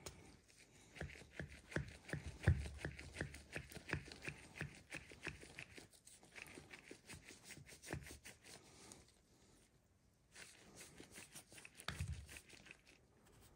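Close-up hand work: quick, irregular clicks and rustling, with a soft thump about two and a half seconds in and another about twelve seconds in, pausing briefly about nine seconds in.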